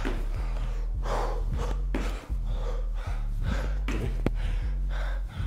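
A man breathing hard in rapid gasps during jump squats, roughly one breath a second, over a steady low hum. There is a sharp click a little past four seconds in.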